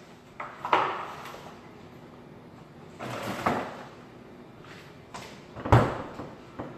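Kitchen handling noises: a few separate knocks and clunks of things being moved or shut, the heaviest a low thud near the end.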